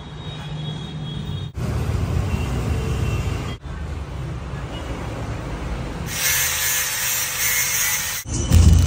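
Short workshop clips joined by hard cuts. At first there is only low background noise. About six seconds in, an angle grinder grinds metal for about two seconds; it is the loudest sound here, and it cuts off abruptly.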